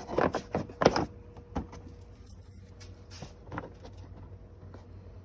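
A kids' plastic Power Wheels ride-on quad being closed up over its battery: a sharp snap at the start, a few hard plastic knocks within the first second, then scattered lighter clicks and taps.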